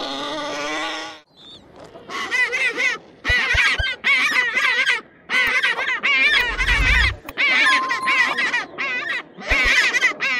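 A wild boar squeals once for about the first second. After a short gap an African penguin brays in a run of seven or eight wavering calls, each lasting about a second, with short breaks between.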